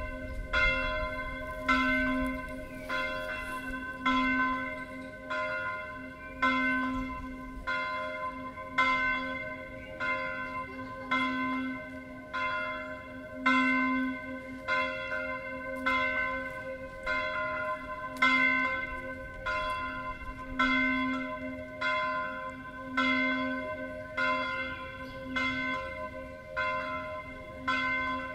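A single church bell tuned to C (Do4), cast by Carlo Chiappani of Trento in 1906, swung full circle in the Tyrolean style and ringing alone. Its clapper strikes about once a second in an even rhythm, each stroke ringing on into the next.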